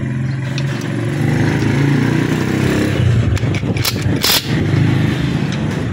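A motorcycle engine idling steadily, with a short, loud burst of rattling noise about four seconds in.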